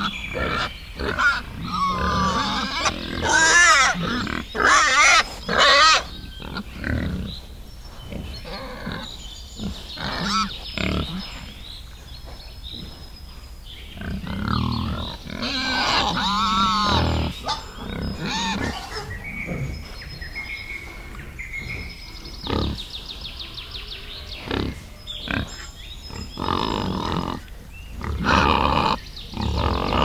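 Wild boars grunting and squealing, with several high, wavering squeals among shorter, lower grunts.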